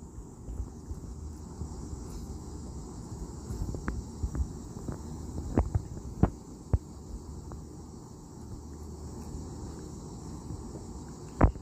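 Steady high-pitched insect chorus over a low rumble, with a handful of sharp clicks between about four and seven seconds in as a small dog bites at a green apple.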